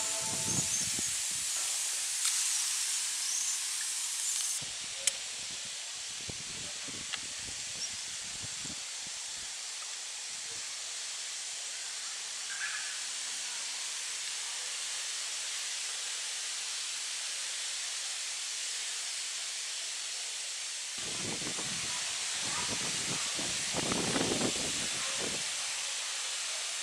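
Steady high-pitched hiss of rural outdoor ambience, with bouts of low rustling about five seconds in and again for a few seconds near the end.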